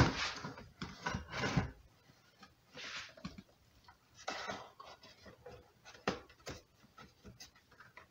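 Marker scratching on a plastic bucket as it is drawn around a PVC pipe held against it: a few short scratchy strokes, with light knocks from the pipe and bucket being shifted.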